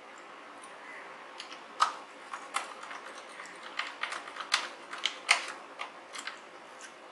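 Light plastic clicks and knocks as a circuit board is handled and pressed into the plastic case of an electronic keyboard: an irregular string of taps starting about two seconds in, the loudest near the start of the string and again a little past five seconds.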